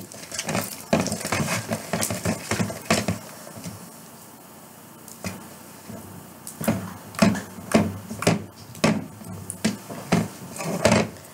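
A mixing stick knocking and scraping against the inside of a clear bowl as sticky slime is stirred by hand, in irregular clicks and clatters, quieter for a couple of seconds around the middle.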